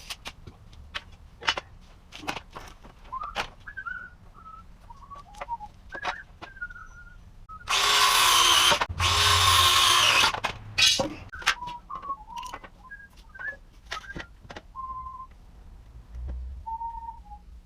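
A man whistling a few short, wavering notes of a tune while he works, among scattered knocks and clicks of handling tools and material. Near the middle come two loud rushing bursts, each over a second long.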